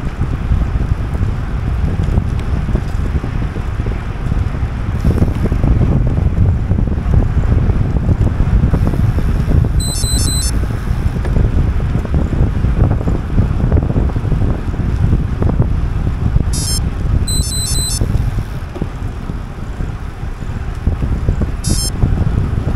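Wind buffeting the microphone of a camera riding along on a moving bicycle, a steady heavy rumble. Short bursts of rapid high-pitched pulsing cut in three times, around the middle and near the end.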